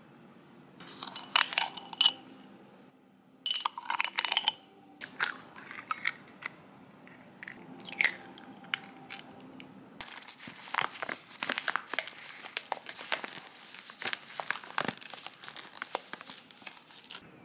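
Food-prep sounds in short bursts: ceramic bowls clinking and being set down, then an egg cracked and pulled open about eight seconds in. The last several seconds are dense gritty crunching and scraping as a metal spoon works through brown sugar.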